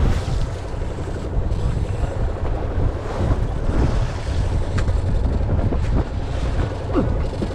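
Wind buffeting the microphone over the wash of waves against a fishing boat's hull at sea, a dense, steady rumble.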